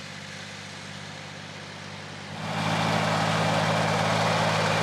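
Tractor engine running steadily just after starting, then brought up to higher revs about two and a half seconds in, after which it runs noticeably louder.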